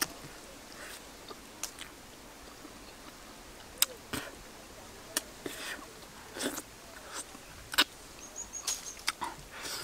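A person eating grilled fish with her fingers: irregular wet lip smacks and chewing sounds, a short sharp smack about every second.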